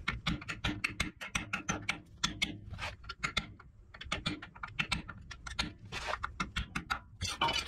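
Hammer tapping a punch against a domed steel freeze plug (Welsh plug) in a Ford N-series tractor engine block, driving the plug in to knock it loose for removal. Quick, light metallic strikes come several a second, with a short pause about halfway.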